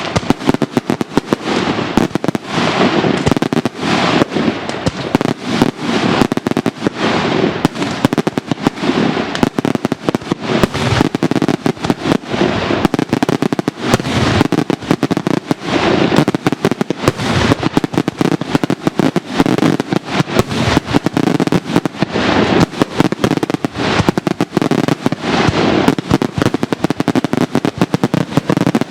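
Italian daytime fireworks show: a dense, unbroken barrage of bangs and crackling reports, many per second, with no pauses.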